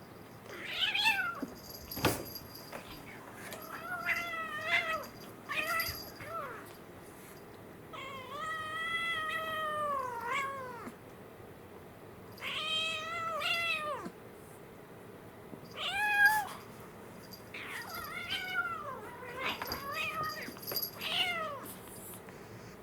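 Kittens meowing over and over while play-fighting: about ten calls that bend in pitch, two of them drawn out to around two seconds. There is a sharp knock about two seconds in.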